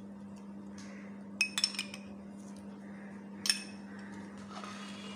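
A metal spoon clinking against steel dishes as yogurt is spooned onto raw beef pieces: a quick cluster of three or four clinks about a second and a half in, and one more about two seconds later. A steady low hum runs underneath.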